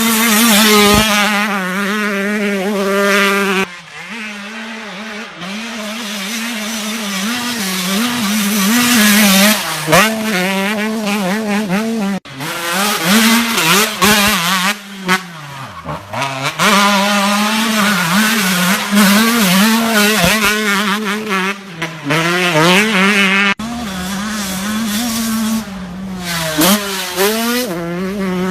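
Motocross dirt bike engines revving hard, their pitch rising and falling over and over as the bikes accelerate and back off. The sound breaks off abruptly about four, twelve and twenty-three seconds in, where one run gives way to another.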